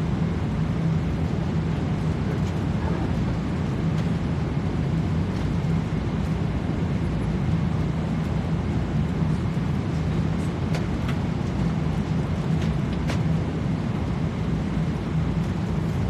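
Steady airliner cabin noise: a low drone with a rush of air, and a few faint clicks in the second half.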